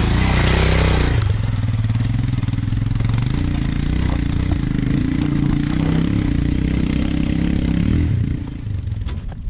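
Royal Enfield Himalayan single-cylinder motorcycle engine running, with a loud surge in the first second and its pitch shifting a few times before it fades away near the end.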